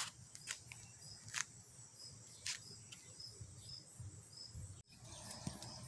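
Faint insect chirping, high-pitched and repeating about twice a second, with a few soft clicks.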